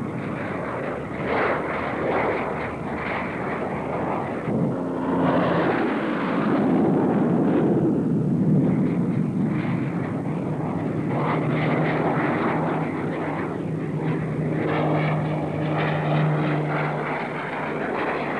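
Lockheed XH-51A compound helicopter, rotor and auxiliary jet engine, flying low past and climbing: a continuous rushing aircraft noise that swells and fades as it passes. A steady low hum comes in for a few seconds near the end.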